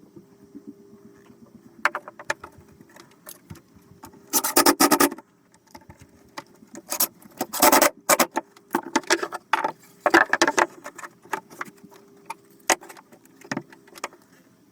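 Small metal pieces clinking and jangling as they are handled, in three denser rattling bursts among scattered single clicks, over a faint steady hum.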